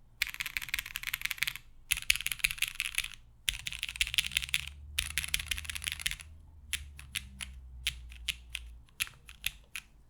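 Typing on an Alas60 mechanical keyboard with lubed SP-Star Meteor White linear switches in Cherry top housings, an aluminium plate and GMK keycaps. Four bursts of fast keystrokes come first, then slower single key presses over the last three seconds or so.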